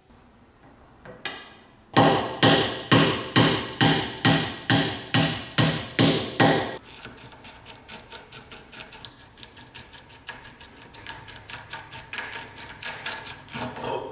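A wooden tool handle being worked off a rusty steel rod clamped in a vise. About ten sharp knocks come roughly two a second, then a faster run of lighter clicks and knocks that speeds up near the end as the handle is twisted and pulled loose.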